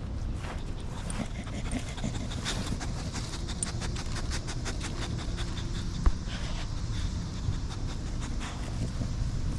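A bully-breed dog panting rapidly and rhythmically, with one sharp knock about six seconds in.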